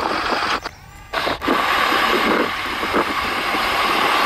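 Remote-control toy excavator and dump truck working: small electric motors whirring steadily, with a brief drop-out about a second in.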